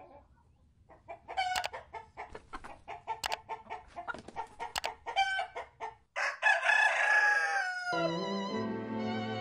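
Chickens clucking in a quick series of short calls, then a rooster crowing in one long call that falls in pitch, about six seconds in.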